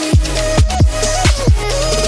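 Electronic background music with a steady beat of deep, pitch-dropping kick-drum hits, about three a second, under a synth melody.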